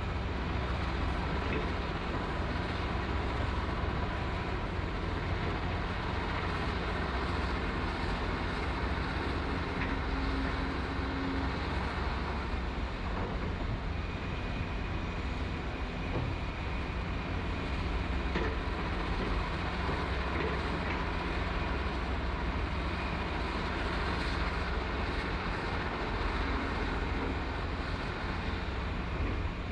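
Heavy construction machinery running steadily, its diesel engines giving a continuous low drone with a few faint clanks.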